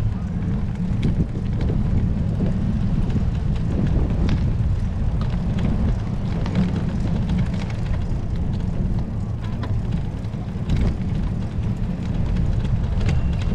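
Wind buffeting the microphone of a moving bike rider, a steady low rumble with a few faint clicks.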